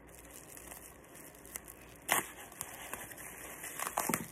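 Plastic bubble wrap crinkling and rustling as it is handled and pulled off a slime container, with a few sharp crackles, the loudest about two seconds in.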